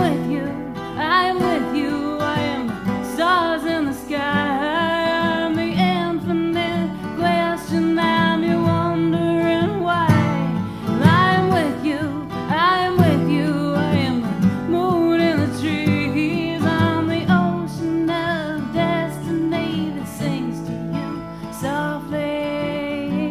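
A song with acoustic guitar and a singing voice.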